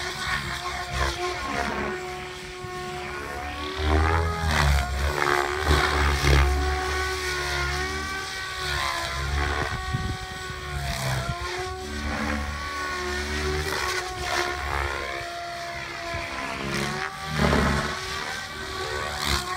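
Radio-controlled model airplane's engine and propeller running in flight, its pitch rising and falling again and again as the throttle changes and the plane moves about. A few low rumbles come and go underneath.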